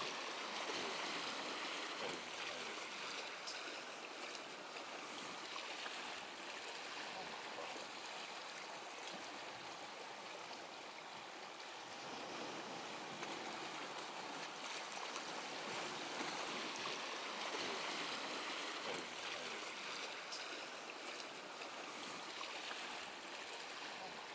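Steady rushing noise with no clear pitch, slowly swelling and easing in level.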